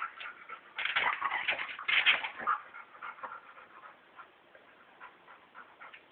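Two dogs play-wrestling: a flurry of dog sounds from about a second in, loudest around two seconds, then dying down to scattered faint clicks.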